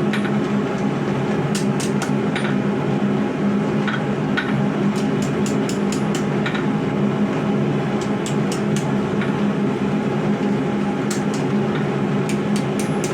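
Light hammer taps on steel, coming in small scattered groups, as a knife's handle is bent on bending forks. Under them runs a steady low hum that is louder than the taps.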